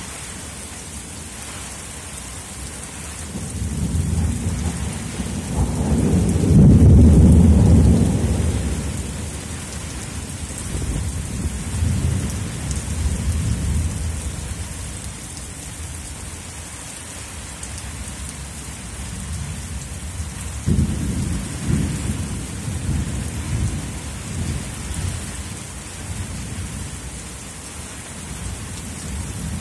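Steady rain with thunder rumbling over it: a long rolling peal builds a few seconds in and is loudest about a quarter of the way through, then a second, softer rumble comes later.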